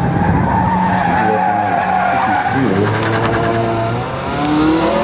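Mazda Miata running hard through an autocross course, its engine pitch rising and falling between corners, with its tires squealing as it turns.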